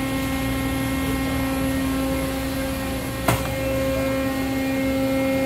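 A hydraulic test bench's pump runs steadily with a humming whine while it holds about 4,000 PSI against a Hyundai 380LC excavator swing motor, whose shaft is braked and not turning. A single sharp knock comes about three seconds in.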